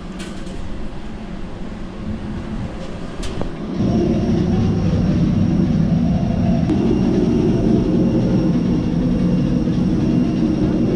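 Airbus A320 cabin parked at the gate, its ventilation running as a steady hum with a faint high whine; it comes in suddenly about four seconds in. Before that there is a quieter jet-bridge background with a few sharp clicks.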